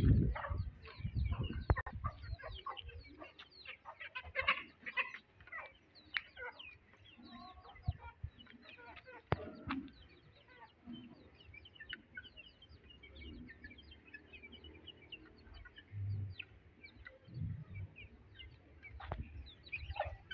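A brood of chicks peeping, with many short high calls overlapping. Low bumps and rumbles can be heard near the start and again a few seconds before the end.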